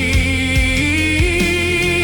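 Christian worship song with singing: a voice holds a note with vibrato, stepping up in pitch about halfway through, over sustained low bass and a few soft low drum beats.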